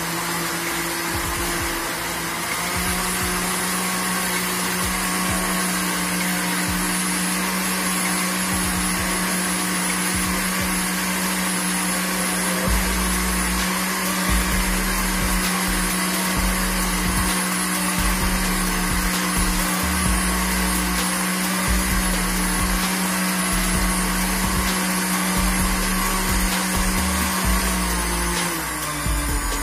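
Electric countertop blender running steadily, blending a carrot and orange mixture; its motor pitch steps up slightly a couple of seconds in, and near the end it winds down and stops.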